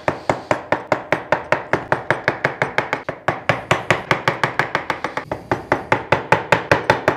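Wooden mallet striking the handle of a medium wood chisel in quick, even, light taps, about six a second, as the chisel chops waste wood away from around a raised circle. The blows are deliberately gentle because the cut runs close to the marked circle.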